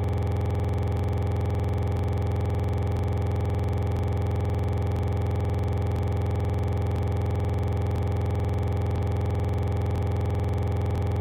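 Steady electronic drone: a low buzzing hum with fixed tones above it and a faint tick about once a second, unchanging throughout.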